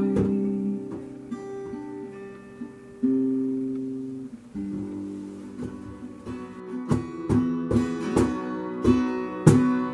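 Acoustic guitar playing a worship-song interlude with no singing: chords left to ring for the first few seconds, then strummed in a steady rhythm from about seven seconds in.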